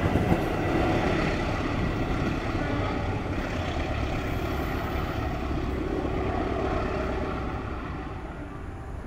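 Diesel-electric locomotive and its train passing, the engine's drone fading away near the end as it recedes.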